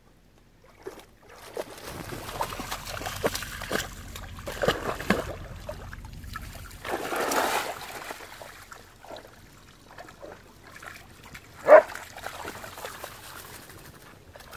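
Siberian huskies wading and splashing in shallow water at the bank, one tugging at a waterlogged snag, with irregular sloshing and dripping. A single short, louder sound comes about twelve seconds in.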